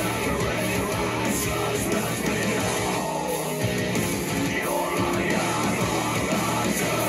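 Rock music with guitars and drums playing steadily.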